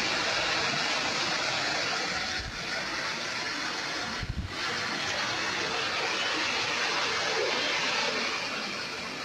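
Steady rush of flowing water, with one brief low thump about four seconds in.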